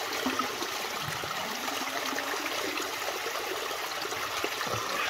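Small mountain spring trickling and splashing steadily over rocks, the falling water pouring into a plastic water bottle held under the flow.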